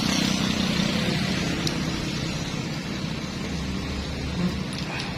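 Steady hum of passing traffic or running vehicles in the background, with a few faint light clicks.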